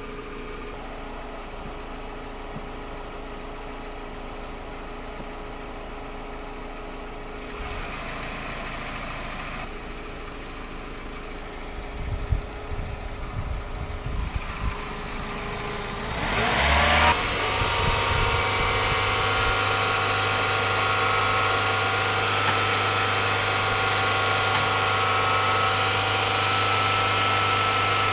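Toyota Camry's inline four-cylinder engine running. Midway there are some knocks, then a short rising sound about 17 seconds in, after which the engine runs louder and steadier.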